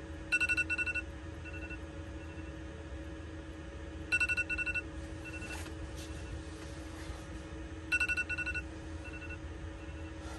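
An electronic alarm beeping: three bursts of quick high beeps, about four seconds apart, each followed by two softer single beeps. Under it, a steady low hum from the van's diesel air heater running.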